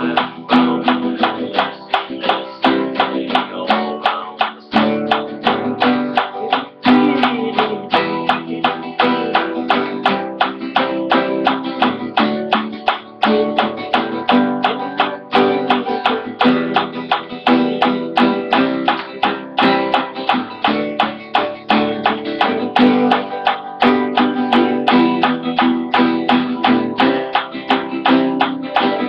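Guitar strummed with a pick in a steady three-beat rhythm, each stroke with an audible pick click, over sustained ringing chords.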